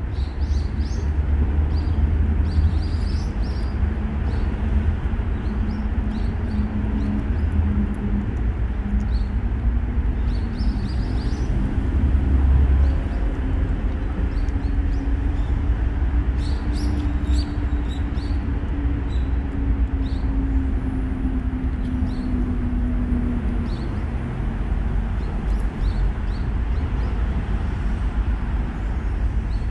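Steady low rumble of road traffic, with a faint engine hum that rises and falls slowly through the middle, and scattered light high ticks throughout.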